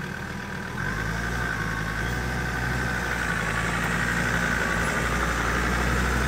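4x4 vehicle's engine running as it drives off, growing steadily louder from about a second in as it gathers speed.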